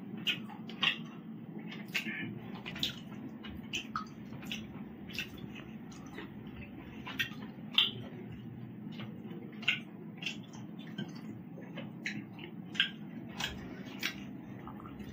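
Wet, irregular smacking and squishing of a person eating rice and curry by hand: mouth clicks and chewing, with the odd squelch of fingers in the food, over a steady low hum.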